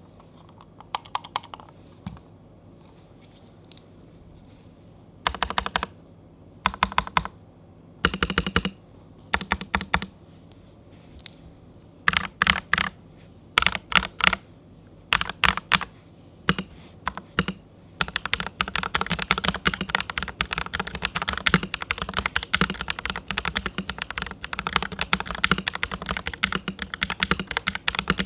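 TM680 mechanical keyboard with Tecsee Purple Panda tactile switches and PBT keycaps being typed on. Short flurries of keystrokes give way to fast, continuous typing about two-thirds of the way in.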